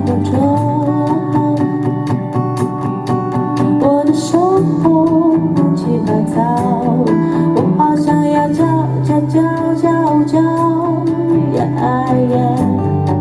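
Live acoustic folk-pop band playing: steadily strummed acoustic guitar over a bass line, with a sliding melody line on top.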